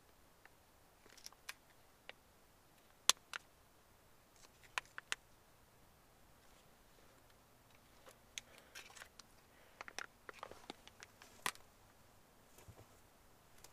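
Faint, scattered clicks and crinkles of a small plastic sour cream packet being handled and pulled at, which won't open. The sharpest click comes about three seconds in, with a quick run of three around five seconds and a busier patch of crinkling near the end.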